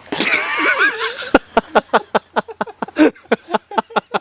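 A person laughing: a high, wavering squeal of laughter, then a run of quick breathy laughs at about six a second.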